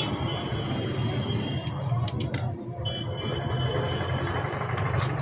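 An engine idling steadily, a low continuous hum, with a few short light clicks about two seconds in.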